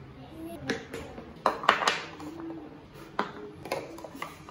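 Plastic skincare bottles and jars being picked up and set down on a marble countertop: about six light knocks and clinks, unevenly spaced.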